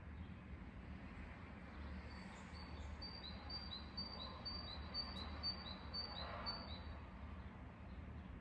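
A songbird calling a steady series of short, high two-part chirps, a little over two a second, which starts about two and a half seconds in and stops near seven seconds. A faint low hum runs underneath.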